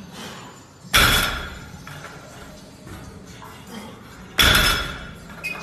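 Loaded barbell with 20 kg bumper plates set down on the gym floor twice between deadlift reps, each a heavy thud with a short clanking ring, about three and a half seconds apart.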